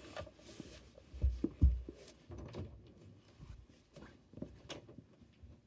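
Two heavy low thumps about a second and a half in, followed by scattered light knocks and clicks: a person moving off from the camera after setting it down.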